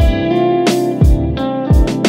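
Background music: a relaxed, chill track with guitar over a drum beat with a deep kick.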